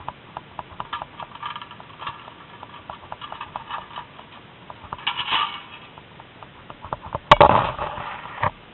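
Handling noise from a camera held in a zipline rider's hand: scattered small clicks and clothing rustle, with a loud knock and a second of scuffing about seven seconds in.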